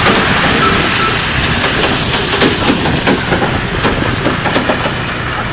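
Loaded trailers of a long road train carrying steel rails rolling past close by on a gravel road: steady tyre and running-gear noise with frequent sharp clicks and knocks.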